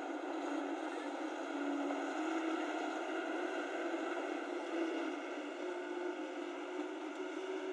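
Loaded tipper truck's diesel engine running steadily as it pulls away along a dirt track, heard as a thin, hissy drone.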